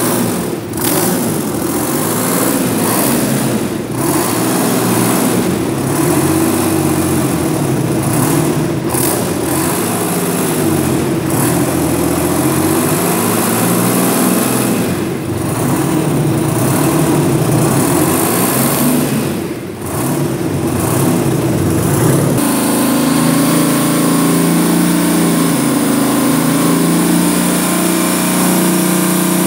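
Detroit Diesel 12V71TA, a turbocharged two-stroke V12 diesel, running on a test stand. Its speed rises and falls several times, then about 22 seconds in it abruptly settles into a steadier, even run.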